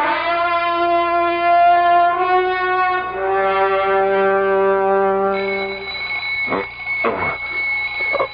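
Brass music bridge: a few held chords that change twice, then fade. About five seconds in, an alarm clock starts ringing with a steady high buzz that carries on.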